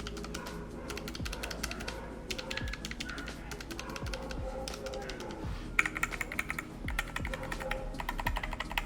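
Typing on a NuPhy Air75 low-profile mechanical keyboard with Gateron Brown tactile switches, in quick runs of keystrokes, over background music with a steady beat.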